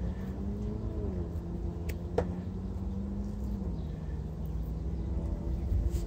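A motor vehicle's engine running steadily close by, a low rumble with a hum that steps down in pitch twice. About two seconds in, two sharp clicks from a hand tool, the second with a brief metallic ring.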